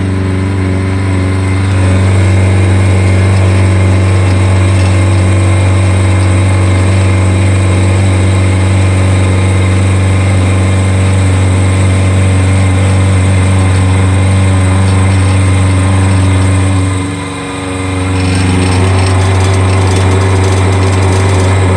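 A high-speed-steel end mill cutting on a CNC mill with loud chatter: a steady, heavy low buzz with overtones. It dips briefly about 17 seconds in, then comes back with a changed tone. The vibration comes from thin stock sticking up from the vise and a nearly worn-out end mill, with a brush rattling on a metal tray inside the enclosure.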